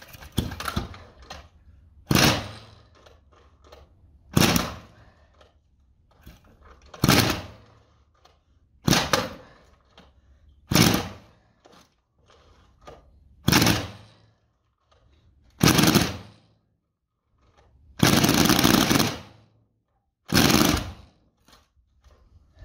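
Homemade 376 cc four-cylinder two-stroke engine built from Druzhba chainsaw engines being cranked over and over, each crank bringing a short loud burst of firing that dies away within about a second: the engine catches briefly but will not keep running. There are about ten such bursts, about two seconds apart, the longest, near the end, lasting about a second and a half.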